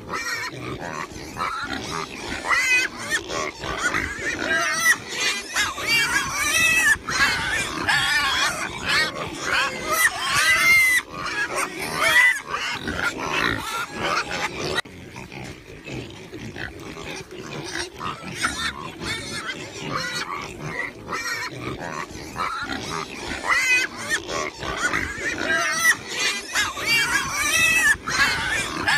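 Wild boar piglets squealing as they play-fight: many short, high, wavering squeals, busiest in the first half, thinning out in the middle and picking up again near the end.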